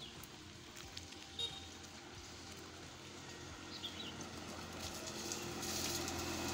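A motorcycle engine approaching along the road, growing louder toward the end, over a steady hiss of rain. A couple of short bird chirps come through about a second and a half and four seconds in.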